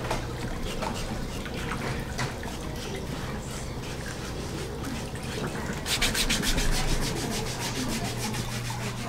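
A pedicure foot file rasping against the sole of a bare foot, quiet scratchy rubbing at first, then fast, even back-and-forth strokes from about six seconds in. A steady low motor hum runs underneath.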